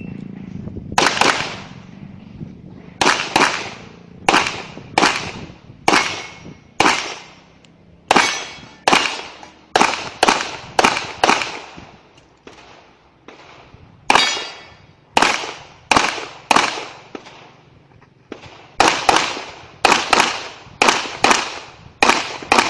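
Handgun shots fired in quick strings during an IPSC stage, about two dozen in all, each with a ringing echo, most about half a second to a second apart, with two short lulls partway through. A brief high beep at the very start is the shot timer's start signal.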